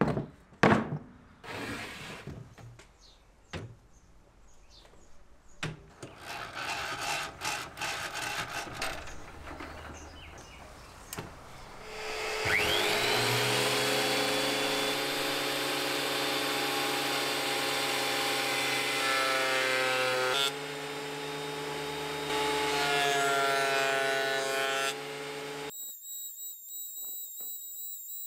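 Knocks and clatter as a Metabo benchtop thickness planer is set down and handled. About twelve seconds in, its motor starts, spinning up with a rising whine and then running steadily.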